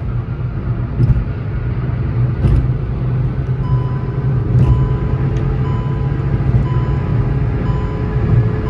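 Hyundai Grand i10 Nios at high speed in fourth gear, around 165 km/h, heard from inside the cabin: a steady engine drone under road and wind noise, the engine note climbing slowly as it pulls for top speed. From about four seconds in, a short beep repeats roughly once a second: the car's over-speed warning chime.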